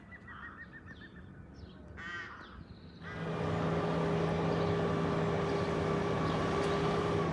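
A crow cawing, then about three seconds in a much louder steady rumble with a held low hum and higher tones sets in and runs on.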